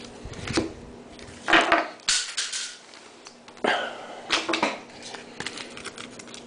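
Foil trading-card pack wrapper being crinkled and torn open by hand, in several short rustling bursts, the loudest about one and a half seconds in.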